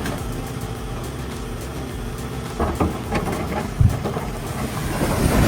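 Excavator's diesel engine running steadily, with a few heavy clunks between about two and a half and four seconds in.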